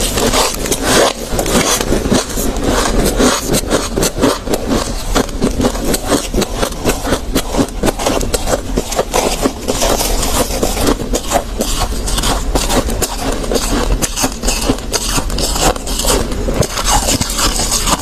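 Freezer frost being chewed: a quick, unbroken run of crisp crunches as the ice crystals are bitten and ground.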